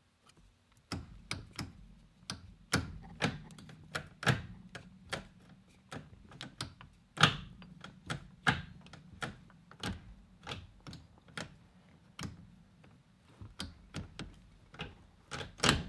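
A run of sharp metallic clicks and clinks, irregular, about two a second, from hand work on a short-throw shifter mounted in a transmission, with a louder clunk near the end.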